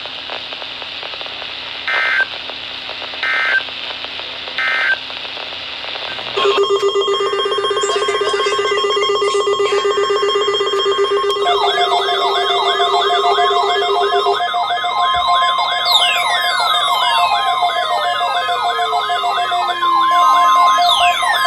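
Weather-radio hiss carrying three short data bursts, the end-of-message signal of a NOAA Weather Radio alert. About six seconds in, a loud, dense layer of steady alarm tones and wailing electronic sirens starts, with many falling sweeps joining near the end.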